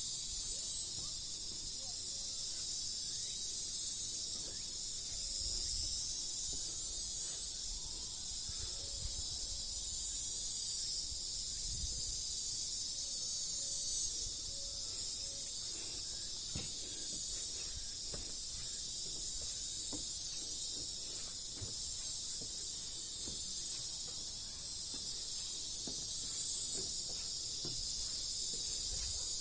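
Steady, dense, high-pitched insect chorus, a continuous shimmering buzz with no breaks.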